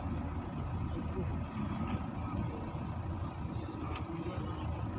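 Steady low engine rumble of an idling vehicle, with faint voices behind it.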